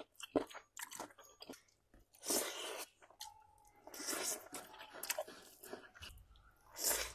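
Close-miked chewing of a mouthful of rice eaten by hand, with wet lip-smacking clicks and mouth noises.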